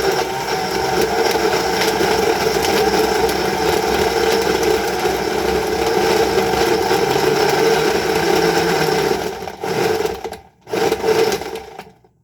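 Countertop blender running, grinding fruit and ice cubes for a smoothie with a steady motor sound; it cuts off about nine seconds in, then runs again briefly in a short pulse near the end.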